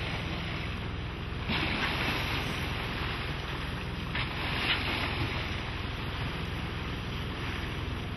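Wind on the microphone over water rushing along a sailboat's hull, with two brief splashing surges, about a second and a half in and again about four to five seconds in, as Dall's porpoises break the surface at the bow.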